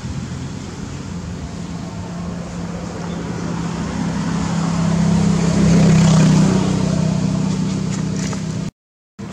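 Low engine hum of a passing motor vehicle that swells to a peak about six seconds in and then eases, over steady outdoor background noise; the sound cuts out abruptly for a moment near the end.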